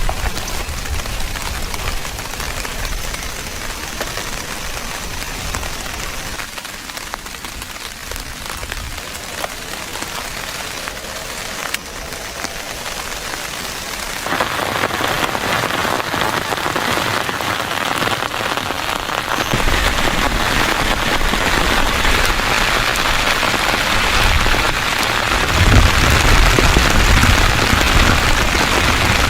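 Heavy rain falling on a tent, growing louder about halfway through.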